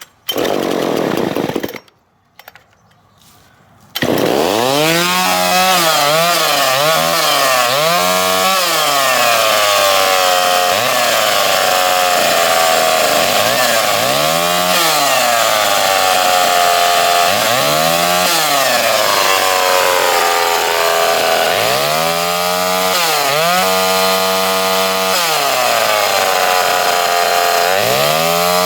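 Poulan 306A two-stroke chainsaw, its spark now supplied by a Nissan Maxima ignition coil. After a short burst of noise and a pause, the engine starts about four seconds in and keeps running, revved up and down again and again. It is running strong.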